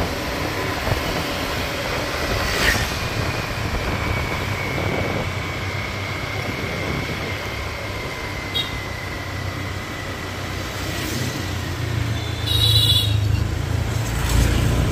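Riding a motor scooter through town traffic: steady engine and road rumble with rushing air. Near the end the rumble swells and a short, high-pitched horn beep sounds.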